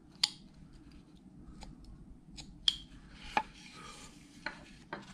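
Carving knife cutting small chips out of a wooden figure's teeth: a handful of sharp, irregular clicks and snaps, the loudest about a quarter second in.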